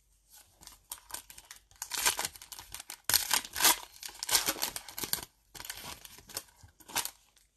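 Foil wrapper of a Panini Mosaic basketball card pack being torn open and crinkled by hand: a dense run of crackling and tearing, loudest from about two to five seconds in.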